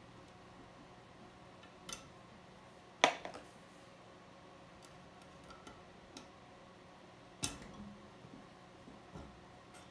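Sharp metallic clicks and taps of small SKS rifle parts being handled while a spring-loaded pin is worked back into place: three louder clicks about 2, 3 and 7½ seconds in, the one near 3 seconds the loudest with a short ring, and a few faint ticks between.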